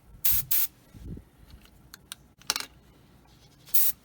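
Airbrush spraying paint in four short hissing bursts: two quick ones near the start, one about halfway and one near the end.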